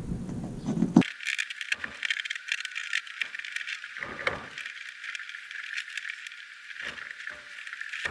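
Light clicking and rattling of small parts being handled, with a few louder ticks spread through it.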